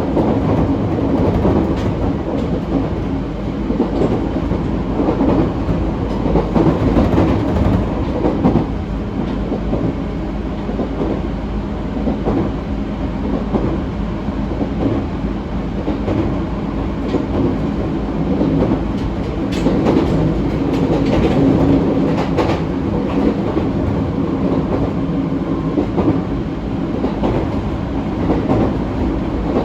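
An ET127-series electric train with a Toyo IGBT VVVF drive running steadily along the line: a continuous rumble of wheels on rail with a low steady hum and scattered clicks over rail joints.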